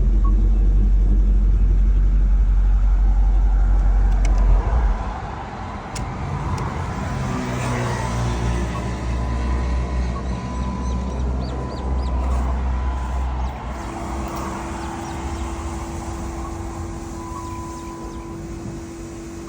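Dodge Ram pickup's engine running, with a deep rumble that drops away sharply about five seconds in. A lighter running sound follows, with scattered clicks and faint steady tones.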